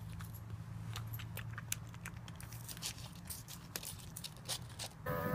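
Pug crunching and chewing shaved snow-cone ice off a plastic spoon: a run of short, sharp crunches and clicks over a steady low hum.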